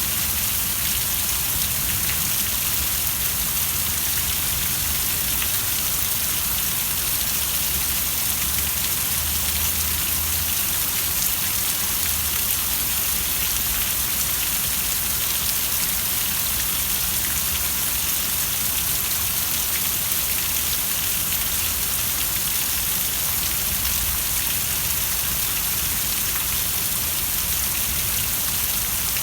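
Steady rain falling, an even hiss of drops on surfaces with a faint low rumble, unchanging throughout.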